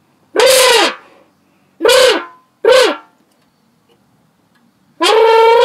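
A boy blowing a mouth-made engine imitation into the neck of a large plastic drink bottle, mimicking a Lamborghini. There are four loud blasts: three short ones in the first three seconds, each dropping in pitch as it ends, then a longer one near the end.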